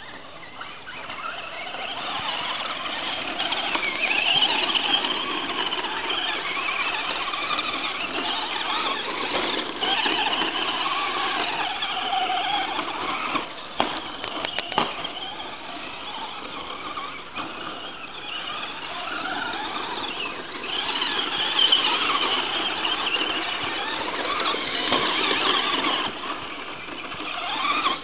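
Brushless electric motors of Traxxas Slash short-course RC trucks whining at high revs, the pitch sweeping up and down as the trucks accelerate and slow around the dirt track. A few sharp knocks come about halfway through.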